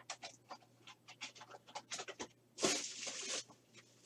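Foil trading-card packs crinkling and rustling as they are handled: a run of short, sharp crackles, with one longer, louder rustle about two-thirds of the way through.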